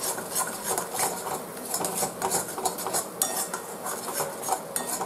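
Flat metal spatula stirring and scraping a thick tomato-and-spice masala paste around a metal kadhai, in quick repeated scraping strokes, as the masala is being fried (bhuna).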